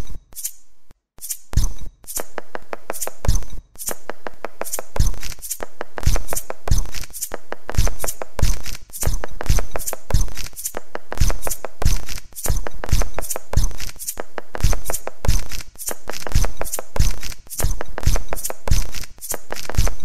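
A steady rhythmic beat built from recorded dinner and kitchen sounds: quick sharp clicks and taps layered over regularly repeating low thumps, starting sparse and settling into a full groove after about two seconds.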